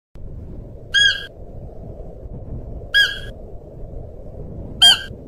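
Siberian musk deer calling: three short, high calls about two seconds apart, over a steady low background rumble.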